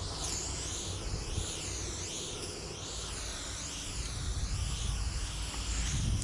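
Aerosol spray can of silver paint hissing without a break while a piece is filled in, the hiss sweeping up and down in pitch about every second. Underneath is a low rumble of wind on the microphone that grows toward the end.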